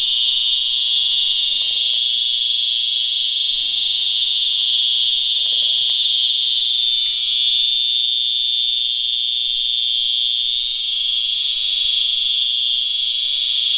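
Wheelock EH-DL1-WM-24 electronic fire alarm horns sounding a loud, steady, continuous high-pitched tone, the building in alarm during a fire alarm system test.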